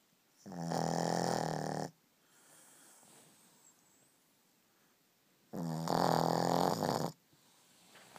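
Shih Tzu snoring in its sleep: two snores about five seconds apart, each lasting about a second and a half, with a faint breath in between.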